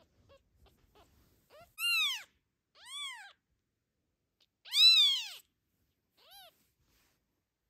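Six-day-old newborn kitten crying: four high-pitched mews, each rising then falling in pitch, the loudest about five seconds in.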